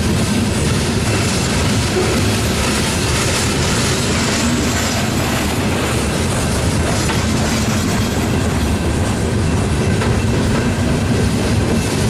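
Loaded open-top coal hopper cars rolling past: a steady rumble and rattle of steel wheels on the rails.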